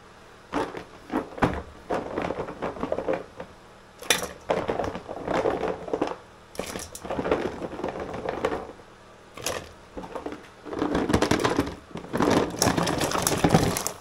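Irregular bursts of clattering and crackling from small hard objects being handled, a dozen or so with short pauses between them, over the faint steady hiss of a lit gas ring burner.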